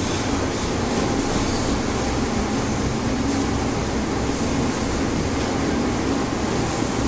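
Steady mechanical hum and hiss of background room noise, even throughout.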